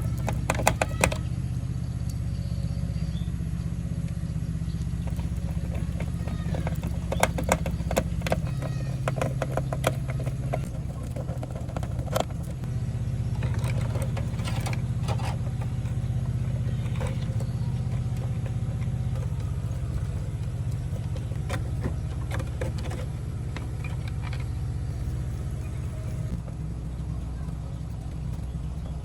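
A steady low hum, with scattered sharp clicks and taps, clustered near the start, around a quarter of the way in and again near the middle.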